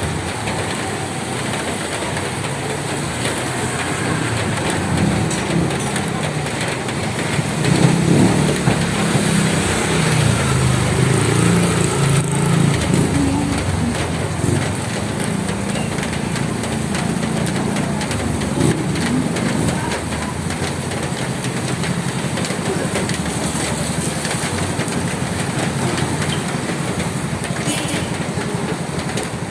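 Steady rain on a roof, an even hiss throughout. A low engine rumble swells and fades about a quarter to halfway through.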